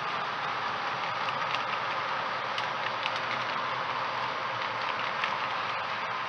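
HO-scale model freight cars rolling along the track, a steady running hum with light, irregular clicks of wheels over rail joints.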